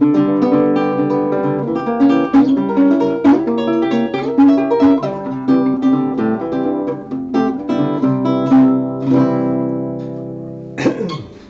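Hofner 3/4 classical guitar with nylon strings, played fingerstyle in plucked notes and chords, the last notes ringing out and fading about ten seconds in. A short sharp noise follows near the end.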